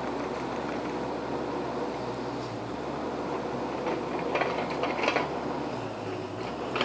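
Excavator's diesel engine running steadily, with a cluster of sharp knocks and cracks about four to five seconds in and another near the end.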